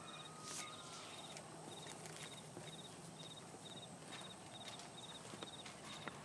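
Faint outdoor ambience with an insect chirping, a short high trill repeated evenly about twice a second, and a few soft knocks.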